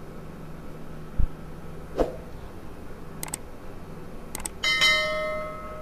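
Subscribe-button animation sound effect: two mouse clicks, then a bell chime that rings for about a second and fades. Before it, two soft knocks of a wooden spatula stirring masala paste in a frying pan.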